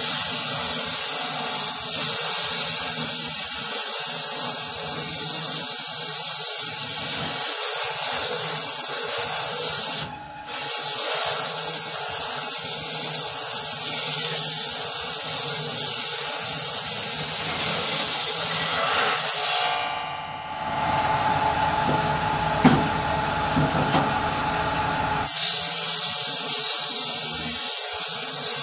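Power saw cutting wood: a loud, steady, hissing saw noise, broken by a brief pause about a third of the way in and by a lower-pitched stretch of several seconds past the middle, before the cutting sound resumes.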